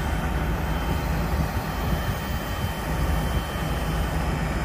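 Diesel engine of a grab lorry running steadily, driving its hydraulic crane as the arm and grab are moved. A low, even hum.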